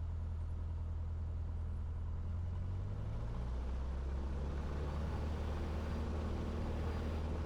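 Cessna's single piston engine turning at low power, then the throttle is opened about three seconds in for a soft-field takeoff roll. The engine note shifts and the sound grows fuller and slightly louder.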